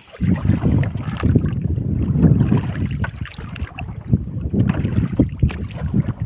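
Wind buffeting the microphone in gusts on an open boat, with a few small knocks and ticks from the longline being hauled in.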